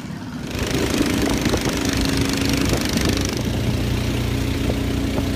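Long-tail boat engine running steadily; it gets louder about half a second in.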